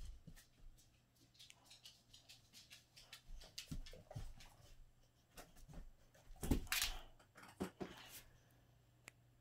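Boxer dogs' claws and paws clicking and tapping faintly on a laminate floor and rug as they move about, with a louder burst about six and a half seconds in.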